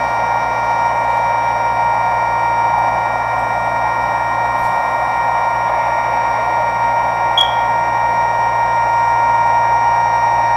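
Homemade Emergency Alert System attention signal: a steady electronic alarm tone near 1 kHz held without a break over a hiss of static. A brief click comes about seven seconds in.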